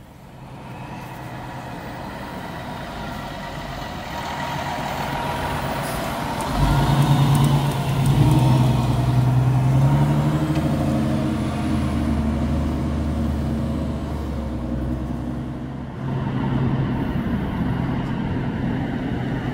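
Fire engine's heavy engine running as the truck drives off, building up over the first few seconds, then jumping suddenly louder about a third of the way in and staying loud and steady.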